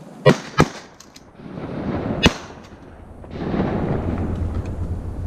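Three shotgun shots at incoming waterfowl: two in quick succession, then a third about a second and a half later.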